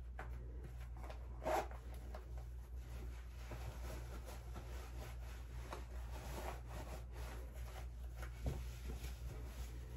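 Clothing rustling as a person dresses, with one short zipper pull about a second and a half in and a soft thump near the end, over a steady low hum.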